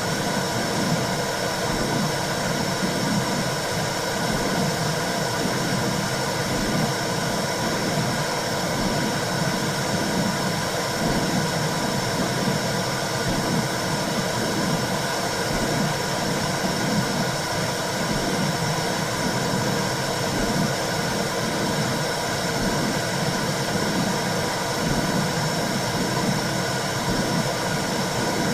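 Womb sound for calming a baby: a steady whooshing hiss with a regular low pulse, like blood flow and a heartbeat heard from inside the womb.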